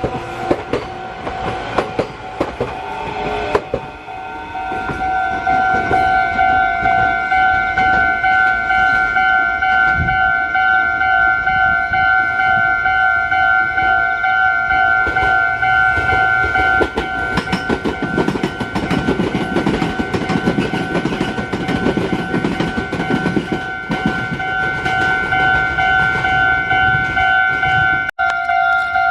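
Japanese level-crossing alarm bell ringing in a fast, even, repeating pulse, starting about four to five seconds in. Underneath it, train wheels clatter over the rail joints as a train passes, loudest in a low rumble around two-thirds of the way through; the sound drops out briefly near the end.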